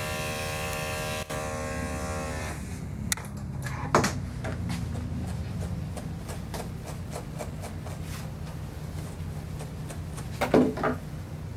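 Electric dog clippers buzzing steadily while shaving out a mat matted tight to the skin; the buzz drops away about two and a half seconds in. Scattered clicks and knocks of handling follow, with a louder cluster of knocks about a second before the end.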